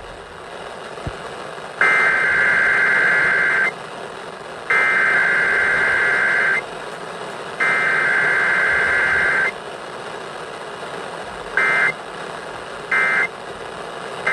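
Emergency Alert System SAME digital header tones: three long bursts of data tones about a second apart, then three much shorter bursts of the same tones in the last few seconds, over a steady radio hiss.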